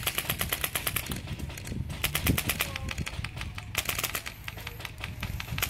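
Airsoft guns firing on full auto: four bursts of rapid ticking shots, over a low rumble.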